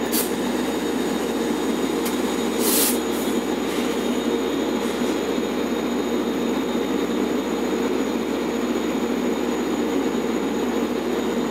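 EMD DE30AC diesel locomotive standing at a station platform with its engine running, a steady heavy drone with a thin high whine over it. Two short hisses cut in, one at the very start and one just before three seconds in.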